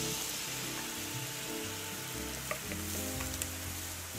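Paella base sizzling in a large pan as pre-boiled garrofón beans are tipped in, with a few light clicks in the second half. Background music plays along.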